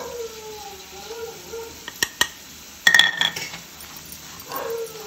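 Metal spoon stirring fried sweet corn in a bowl, with sharp clinks of the spoon against the bowl about two and three seconds in.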